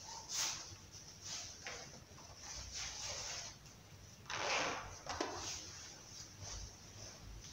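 Faint rustles and soft swishes of hands handling the altar vessels, a paten and chalice, on a cloth-covered altar: several short ones, none sharp.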